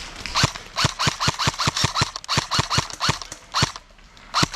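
Airsoft gun fired in quick repeated single shots, about five a second, each a sharp crack with a thump. The shots pause briefly, then resume near the end.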